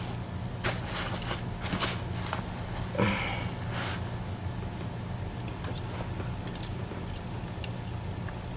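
A person sniffs and breathes through the nose several times in the first half, then faint small ticks of lock picks working in a high-security EVVA ICS cylinder, over a steady low room hum.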